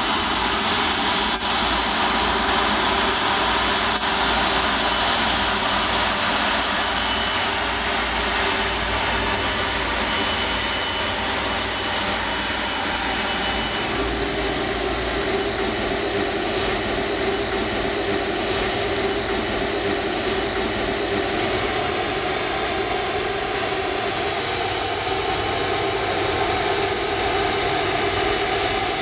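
Airbus A330-200's twin jet engines running at taxi power: a steady engine noise with a faint high whine through the first half.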